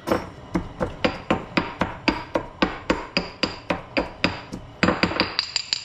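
Garlic cloves being pounded by hand: a steady run of hard strikes, about four a second, each with a short ring.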